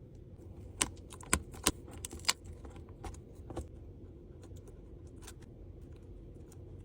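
Sharp clicks and clacks of small repair tools and parts being handled during an iPad repair: a quick run of five louder clacks about a second in, then a few fainter taps, over a low steady hum.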